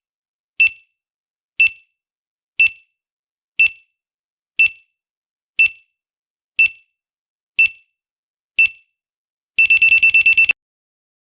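Quiz countdown-timer sound effect: short high electronic beeps ticking once a second, nine in all, then a rapid run of about eight quick beeps near the end that signals time is up.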